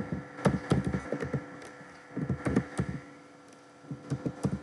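Typing on a computer keyboard: a quick run of keystrokes, a short pause, then a second run, then a lull near the end. A steady electrical hum runs underneath.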